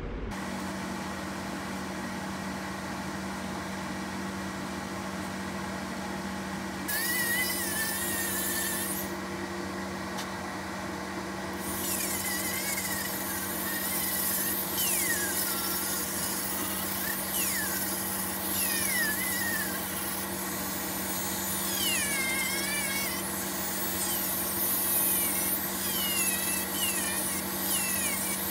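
Corded handheld rotary tool running with a steady whine. From about seven seconds in, its bit grinds the edge of a white shoe sole, adding a gritty hiss while the pitch repeatedly dips and recovers as the bit bites.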